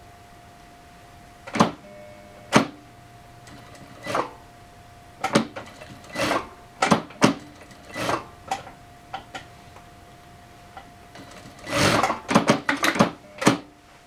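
Brother DB2-B737 industrial lockstitch sewing machine stitching in short bursts, starting and stopping about a dozen times, with a longer run about twelve seconds in followed by a quick run of short bursts. A faint steady hum sits underneath.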